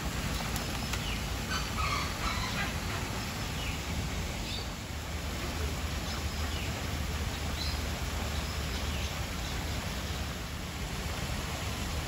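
Steady rush of water from small waterfalls into a pond, with a few short bird calls, the clearest about two seconds in.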